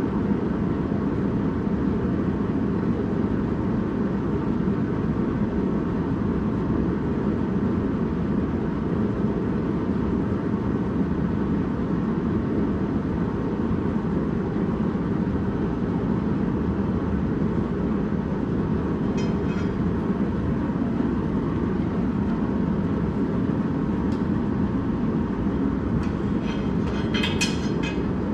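Propane gas forge burner running with a steady rushing noise while the iron heats. Near the end come a few light metal clinks as the glowing bar is drawn out of the forge.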